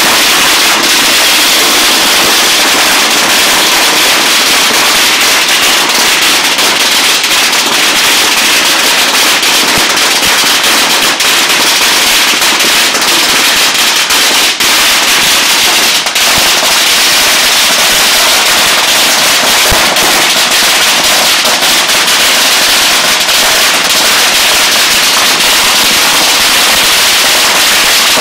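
Several long strings of Chinese firecrackers hung on a rack going off at once: a very loud, dense, unbroken rattle of cracks with no pause.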